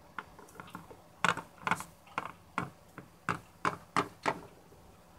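Hard plastic Littlest Pet Shop figure being tapped along a glossy tabletop as it is walked by hand: a run of light, uneven clicks, about three a second.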